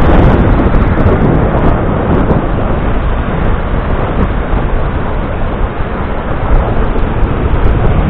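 Wind buffeting the microphone over the steady wash of a rough sea's surf breaking on a sandy shore.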